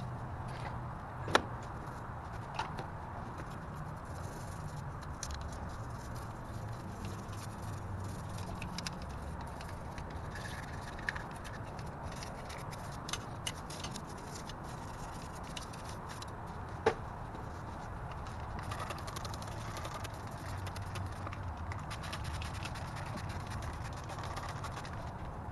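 Small brush scrubbing grime on a car engine, quiet scratching and scraping with a few sharp clicks, over a low steady rumble.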